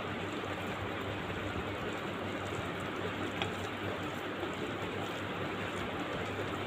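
Steady hiss of background noise with a faint low hum underneath and a single faint tick a little past the middle.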